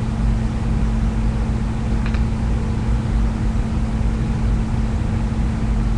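Steady low hum with hiss, with a faint short sound about two seconds in.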